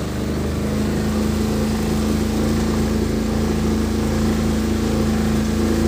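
An engine running at a steady speed, a constant drone that holds one pitch throughout.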